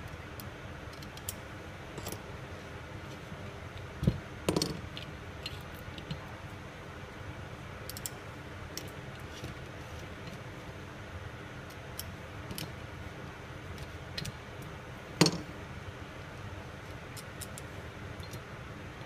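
Small metallic clicks and taps of T-handle Allen keys turning bolts into the metal body of a wireline conveyance wheel, with a few louder knocks. One sits about four seconds in and a sharper one about three-quarters of the way through, over a steady hiss.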